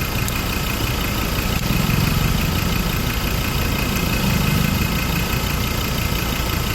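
Ford Endeavour diesel engine idling, swelling slightly twice. The engine runs with a swollen, cracked intake pipe that draws in air, the cause of its loud noise.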